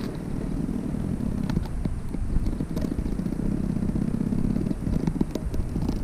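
A cicada stuck on a sticky catching stick close to the microphone, buzzing and fluttering as it struggles: a steady, rough low buzz with a few faint clicks.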